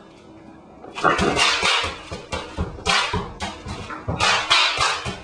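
Bare feet stamping on a sheet of bubble wrap on a hard floor, the bubbles popping in three crackling bursts of many quick pops.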